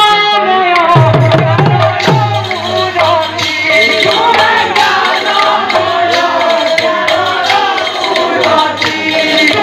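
Sambalpuri kirtan music: a man singing a devotional line into a microphone, with two-headed barrel drums beaten in a fast rhythm. A deep drum tone joins about a second in.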